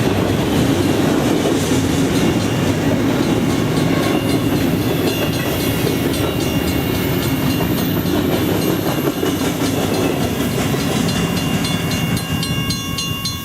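Train cars rolling past with a steady low rumble and the rhythmic clickety-clack of wheels over rail joints, fading near the end.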